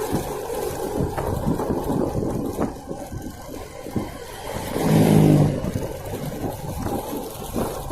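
Small motorcycle engine running, with a brief loud pitched tone about five seconds in.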